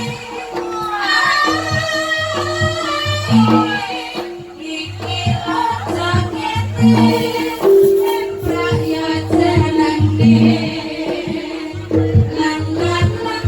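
Campursari band music: a voice singing a melody over a steady drum-led beat.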